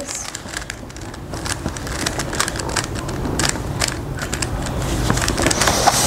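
Rapid plastic clicking and rustling of a magnetic Rubik's cube being turned close to a clip-on microphone. Many small clicks run over a rough rustling noise that grows louder toward the end.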